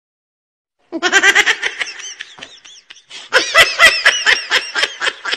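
Baby monkey laughing as it is tickled: high-pitched, rapidly pulsed laughing cries that start about a second in, dip briefly, then grow louder near the end.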